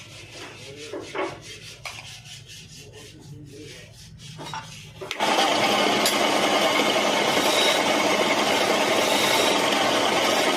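Wood lathe turning a wooden workpiece. A low hum with faint knocks comes first. About five seconds in, a loud, steady rasping starts abruptly as a cutting tool or abrasive bears on the spinning wood.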